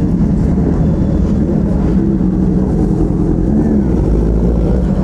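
Motorcycle engine running at a steady pace with a loud, steady low rumble.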